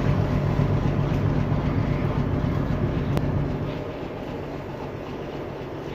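Diesel locomotive engine running with a steady low hum, which drops noticeably in level about two-thirds of the way through.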